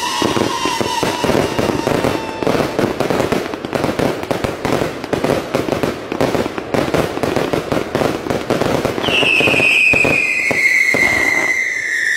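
Fireworks display: a dense, rapid run of bangs and crackles from aerial shells and fountains, with a long whistle falling in pitch about nine seconds in.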